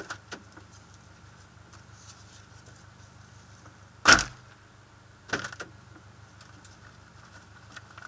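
Rally car engine idling with a steady low hum, heard from inside the cabin. A few sharp knocks sound over it, the loudest about four seconds in and another a second or so later.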